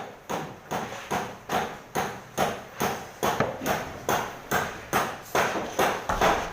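A hammer striking in a steady, even rhythm, about two and a half blows a second.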